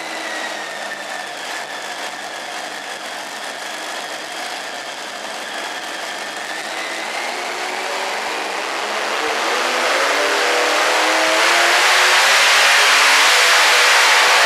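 Multi-engine modified pulling tractor running at idle with a high whine, then revving up from about eight seconds in and rising to a loud full-throttle run as it starts to pull the sled.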